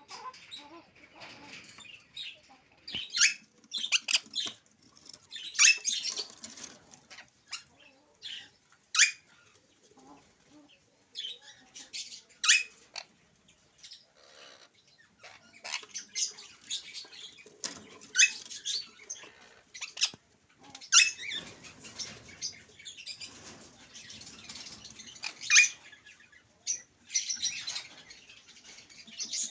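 Alexandrine parakeet making a long run of short, sharp, high-pitched chirps and squawks, irregularly spaced with brief pauses between them.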